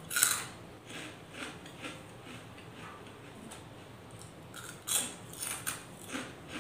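Crisp fried rice chips being bitten and chewed close to the microphone: a sharp crunch as the first bite snaps, then a run of smaller crunches about twice a second, with a louder burst of crunching near five seconds in.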